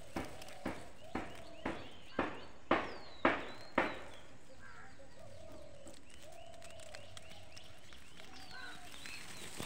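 A run of about eight evenly spaced knocks, roughly two a second, growing louder and stopping about four seconds in, followed by faint short calls.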